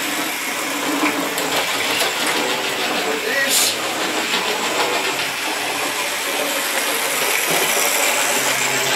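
OO gauge model locomotive running round the layout track: the steady whirr of its small electric motor and the rattle of its wheels on the rails, with a few sharp clicks over rail joints.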